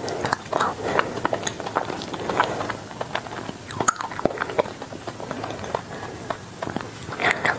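Close-miked chewing of a mouthful of ice cream bar with a crisp coating: irregular crackly crunches and wet mouth clicks, with a louder burst near the end.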